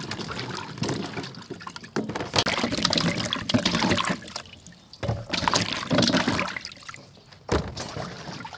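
Hands sloshing peeled green banana pieces in a steel bowl of water, in irregular splashes, with water trickling and dripping as the pieces are lifted out.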